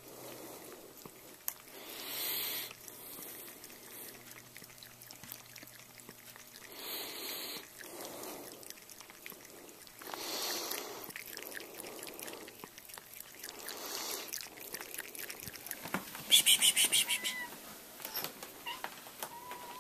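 A cat lapping water from a paper cup, with soft puffs of noise every few seconds. A loud, brief rustle comes a few seconds before the end.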